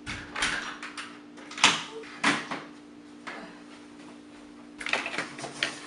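A door being handled, with several separate knocks and clunks: two loud ones about a second and a half and two and a quarter seconds in, and a quick cluster near the end. A steady low hum runs underneath.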